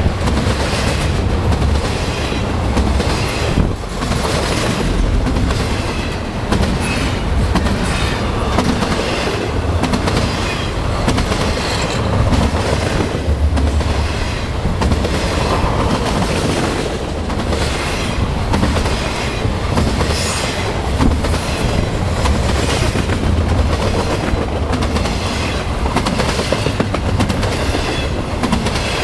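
Loud, steady low rumble with frequent short clicks and knocks running through it, as of heavy wheels rolling.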